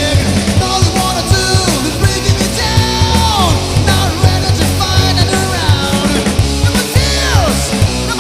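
Rock band playing live: drums, bass and guitars at full volume with a steady pulsing beat, and several held notes sliding down in pitch.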